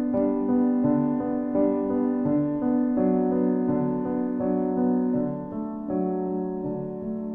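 Background piano music, the notes changing about twice a second.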